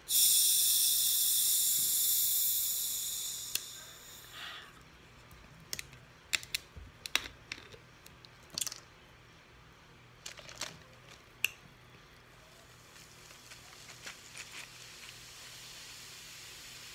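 Eating boiled crawfish close to the microphone: a long hissing suck that fades out over about four seconds, then scattered sharp cracks and clicks of shells being broken apart.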